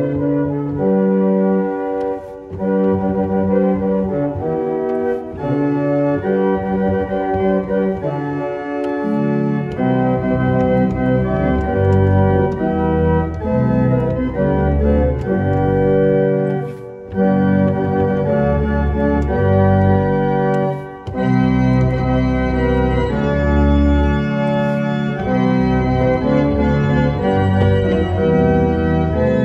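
1890 Roques pipe organ playing sustained full chords in a crescendo toward full organ. Deep bass notes join about a third of the way through, and the chords change with a few brief breaks between phrases.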